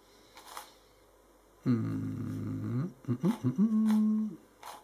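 A man humming wordless 'hmm' sounds while puzzling: one longer hum about two seconds in, a few short ones, then a held hum near the end. Faint clicks of a plastic puzzle cube being turned come before and after.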